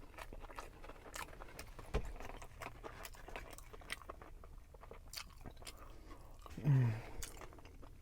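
Close-miked chewing of a mouthful of Big Mac, with many small wet mouth clicks. There is a soft thump about two seconds in, and a short falling hum from the voice near the end.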